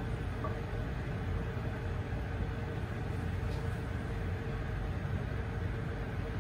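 Steady low rumble and hiss of a gas stove burner flame under a lidded pot of fish paksiw simmering, at an even level throughout.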